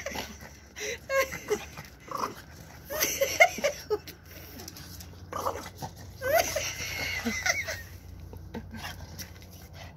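French bulldog vocalizing during rough play: short bursts of whining, grumbling sounds whose pitch bends up and down, about a second in, around three seconds, and again from about five and a half to eight seconds.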